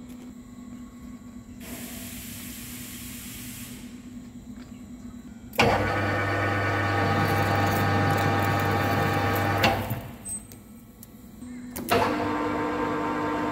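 Metal lathe running while turning a small stainless steel part: the spindle and gearing give a loud, steady whine that starts abruptly about five and a half seconds in, stops four seconds later, and starts again near the end. Before that there is only a low machine hum with a short hiss.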